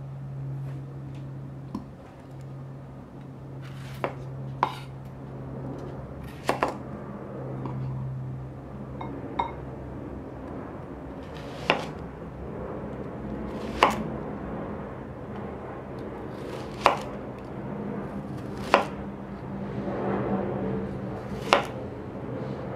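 A knife chopping on a cutting board: about ten single sharp chops, unevenly spaced roughly one to three seconds apart.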